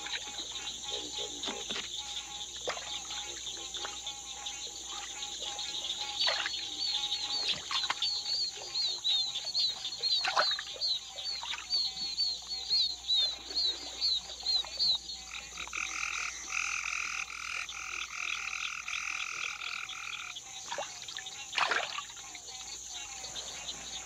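Frogs and toads calling over a steady high insect drone. There is a run of quick high chirps, several a second, and a buzzy trill lasting about five seconds in the middle. Scattered sharp falling calls stand out above the rest.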